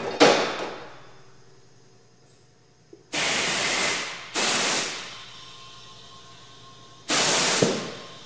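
Three abrupt bursts of compressed air hissing in a repair shop, the first about a second long, then two shorter ones, each tailing off. Just at the start comes a sharp knock that dies away over about half a second.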